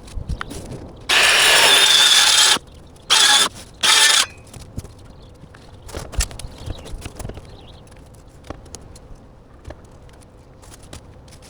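Circular saw running in three bursts as it cuts rigid foam insulation board: one of about a second and a half, then two short ones, each starting and stopping abruptly. Light knocks and handling sounds follow.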